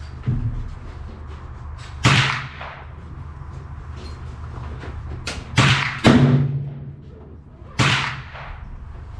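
Taurus .22 LR revolver firing single shots: four sharp cracks, each with a short ringing tail, two of them about half a second apart. A duller thump comes just after the start, over a steady low hum.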